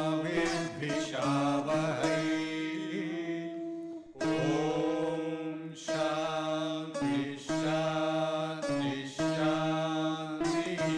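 Opening theme music: a steady low drone held under a melody that moves in short phrases with brief breaks between them.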